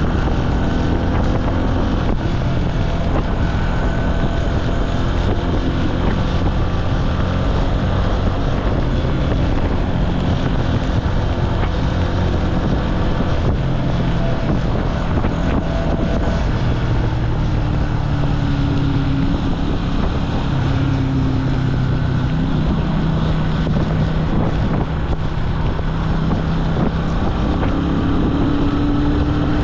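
Jialing 150 cc motorcycle engine running while riding, its pitch rising and falling as the engine speed changes, with wind rushing over the microphone.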